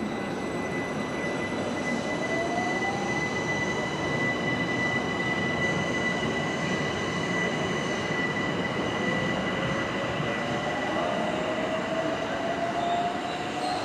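London Overground Class 378 electric multiple unit moving through the station and picking up speed. Its motor whine glides upward in pitch, twice, over the rumble of the wheels, and a steady high-pitched whistle or squeal runs over it throughout.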